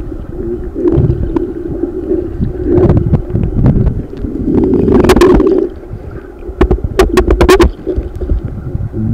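Muffled underwater sound of a submerged camera in a flowing creek: a low, churning rumble of water with knocks, and a quick run of sharp clicks about seven seconds in.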